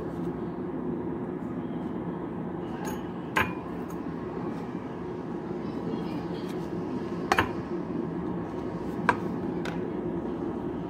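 A metal utensil clinks sharply against a glass mixing bowl three times, over a steady low hum.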